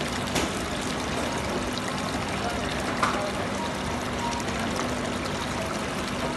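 Decorative rock-effect fountain: water pouring in a steady sheet from the spout and splashing into the basin below, with a faint steady low hum underneath. Briefly louder twice, about half a second and three seconds in.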